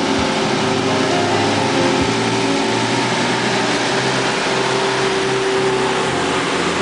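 Engine of a tourist road train running steadily as the train drives up and passes close by.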